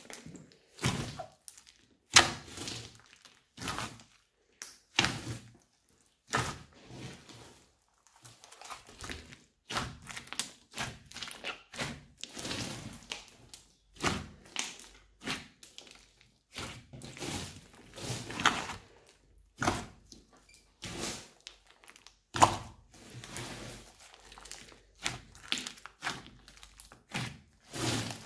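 Hands kneading and squeezing a large lump of old slime mixed with clay: irregular sticky squishes and soft thuds, one or two a second, with short quiet gaps.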